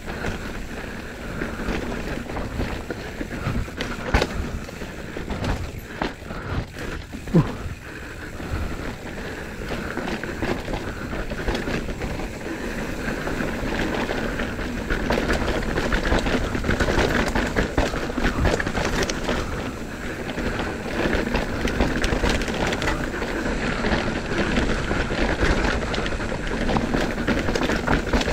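Mountain bike descending a dirt downhill trail: a steady rush of tyre and rolling noise with frequent sharp clicks and knocks from the bike rattling over bumps. It grows louder about halfway through as speed picks up.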